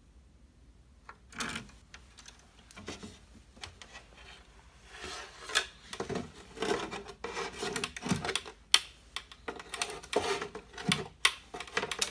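Hands and tools working on an Ovation Super Adamas guitar as it is taken apart: irregular scraping and rubbing with light clicks and knocks, starting about a second and a half in and growing busier from about five seconds in.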